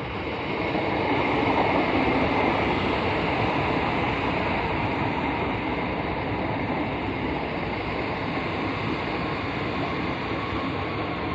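Train passing: a steady rush and rumble of wheels on the rails that grows loud over the first two seconds and then holds. No horn is sounded.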